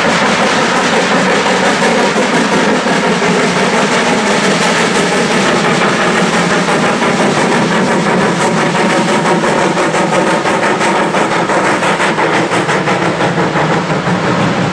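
Steam locomotive 218A hauling a train of empty carriages past at close range: a loud, steady rumble of the train, with wheels clicking rapidly over rail joints through the second half as the carriages cross overhead.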